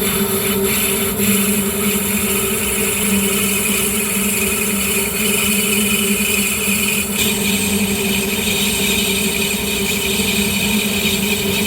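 Metal lathe running with a steady hum, and a brighter hiss of cutting that picks up about seven seconds in.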